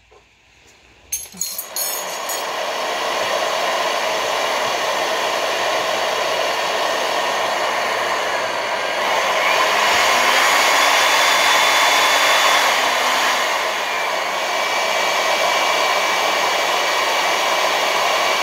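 Electric motor of an MAB 1300V magnetic core drill running steadily after a few metallic clicks, starting about a second and a half in. It gets a little louder from about ten to thirteen seconds in.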